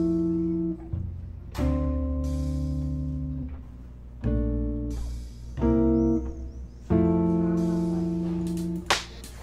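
Background music: slow guitar chords, each held a second or two before the next.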